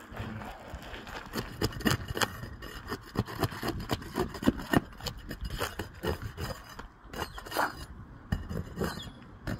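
Flat steel pry bar scraping and prying under asphalt roof shingles, many short irregular scrapes and clicks as the shingle tabs are worked loose for a repair.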